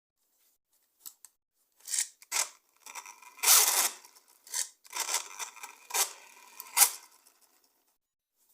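Hands handling toy packaging: a run of irregular rustling and scraping noises, the longest in the middle, stopping about a second before the end.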